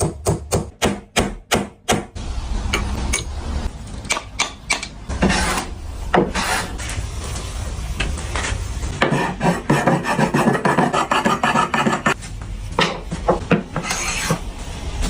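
Wood being worked by hand with a rasp or similar tool: repeated rasping, scraping strokes. A quick run of about eight sharp strokes opens the stretch, followed by further runs of rubbing strokes.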